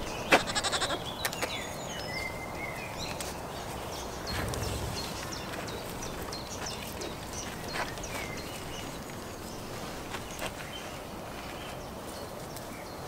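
Goats moving about a pen, hooves clopping, with a sharp knock and a quick rattle of knocks about half a second in and scattered knocks after. Small birds chirp faintly near the start.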